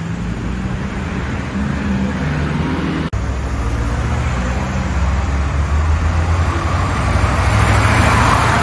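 Street traffic noise with a motor vehicle engine running close by, steady and fairly loud, broken by a short dropout about three seconds in.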